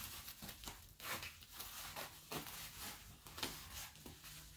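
Faint crinkling and rustling of a parcel's black plastic wrapping and bubble wrap being pulled open by hand, in irregular crackles.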